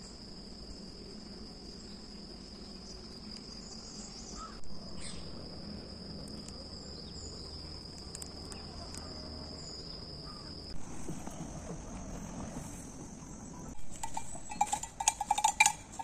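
Steady, high-pitched insect buzz; about two-thirds of the way through a higher-pitched buzz takes over, then stops. Near the end, a bell hanging from a grazing cow's neck clinks and clanks in a quick run of strikes.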